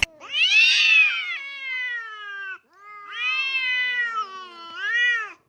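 A cat yowling: three long, drawn-out meows, each rising then falling in pitch, the first the longest and the last the shortest.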